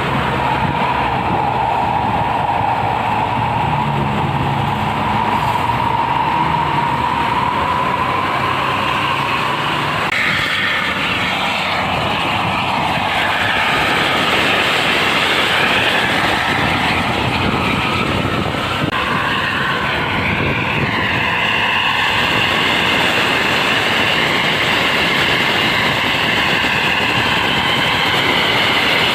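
Intercity bus on the move: steady engine and road noise with a high whine. The whine changes pitch about a third of the way in and shifts again several times after that.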